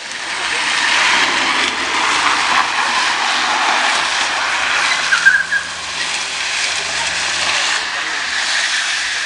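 A drift ride sliding and scraping across pavement in one long skid. The noise builds up at the start and eases off near the end, with a brief squeak about five seconds in.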